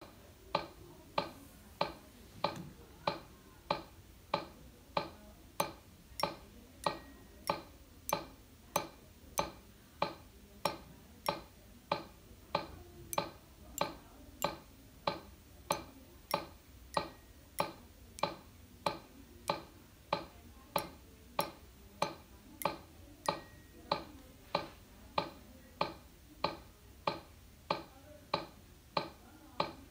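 Metronome app on an iPad clicking steadily at 95 beats per minute.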